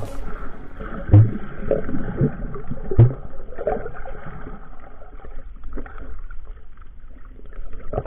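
Muffled underwater sound of water moving around a submerged camera, with two dull thumps about one and three seconds in.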